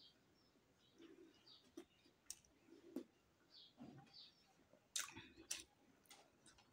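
Faint close-up eating sounds: soft chewing and mouth clicks, then a few sharp crackles of a fried samosa's crisp pastry crust being torn apart by hand, the loudest about five seconds in.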